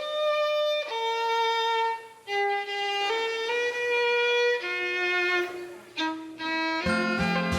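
Background music: a solo violin playing a slow melody of long held notes. Near the end a strummed guitar comes in.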